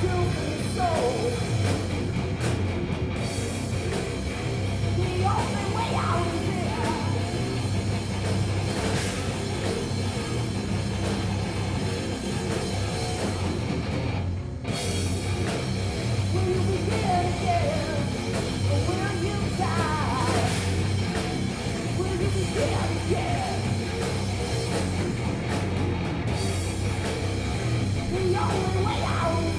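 A live hard rock band plays loudly, with electric guitars, bass and a drum kit, and a singer sings in short phrases over it. The music breaks off very briefly about halfway through.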